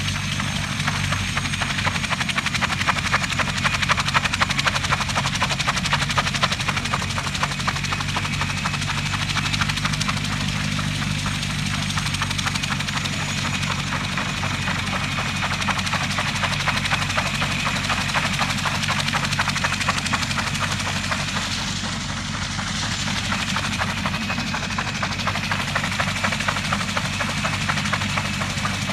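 Mi-2 helicopter running close by: the fast, steady beat of its rotor over the low hum and high whine of its twin turboshaft engines, dipping slightly about two-thirds of the way through.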